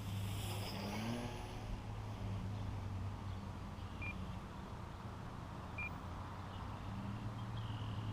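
Electric motor and propeller of an E-flite Slow Ultra Stick RC plane in flight: a steady buzzing hum, with a brief rise in pitch about a second in.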